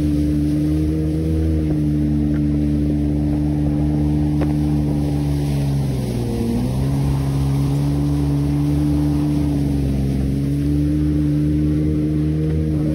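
Jet ski engine running steadily at speed, its pitch dipping briefly about six seconds in and then rising again.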